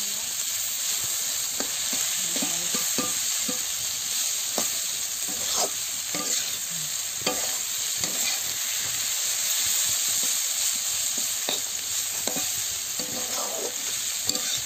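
Sliced bitter gourd, onion and green chillies frying in oil in a wok, sizzling steadily, while a spatula stirs and scrapes through them in irregular strokes.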